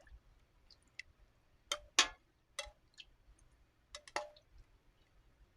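Scattered light clicks and knocks from kitchen handling, about seven in all and irregularly spaced, the loudest about two seconds in.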